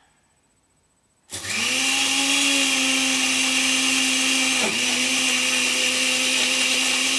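Countertop blender starting about a second in and running steadily, churning a thick brown mix of fast food and cola. The motor note rises slightly as it gets going and dips once, briefly, about halfway through.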